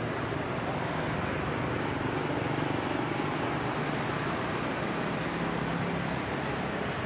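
Street traffic: a steady wash of passing vehicle engines and road noise, swelling slightly a couple of seconds in.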